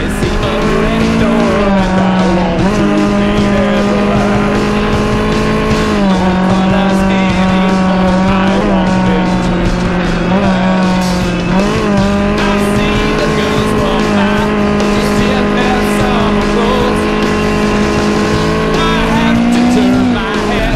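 Kawasaki Versys-X 250's parallel-twin engine running at steady cruising revs, heard from the rider's seat. Its pitch dips and picks up again several times with throttle and gear changes, then climbs slowly and drops near the end.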